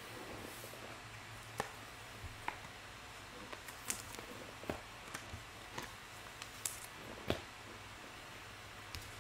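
Select Soccer trading cards handled by hand: faint, irregular clicks and flicks of card stock, about ten in all, the sharpest about seven seconds in.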